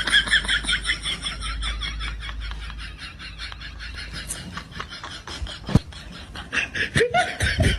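A comedy sound effect: a rapid run of short high-pitched sounds, about five a second, with a single thump near six seconds and louder bursts near the end.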